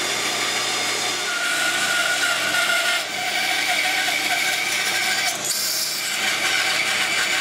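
Bandsaw running and rough cutting a new wood block glued onto the end of a cabinet leg stretcher, a steady sawing sound with a brief dip about three seconds in.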